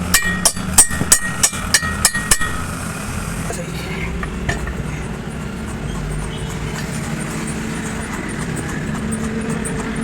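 Hammer blows on the metal of a truck drive shaft's universal joint, about three a second, each with a short metallic ring. The blows stop about two and a half seconds in, leaving a steady low rumble.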